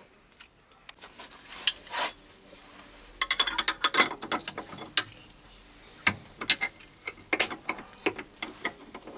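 Metal clicks and knocks from working a lathe milling attachment by hand, with a spanner on the chuck holding a brass workpiece. There are a few sharp clicks at first, then a quick run of clicks about three seconds in, then separate clinks and knocks.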